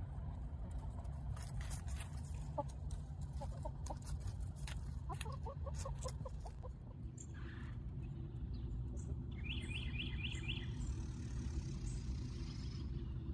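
Chicken hens clucking softly in short quick runs of notes as they forage, with a few light clicks, over a steady low rumble. Near the end a small bird chirps a quick run of about five high notes.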